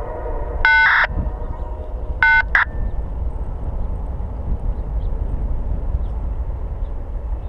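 Two short blasts of a distant locomotive horn chord, about a second and a half apart, over a steady low rumble.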